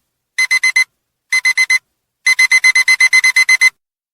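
Digital alarm-clock beeping as the countdown timer's alarm goes off. It is a high electronic beep in two bursts of four quick beeps, then a longer run of about a dozen beeps that stops near the end.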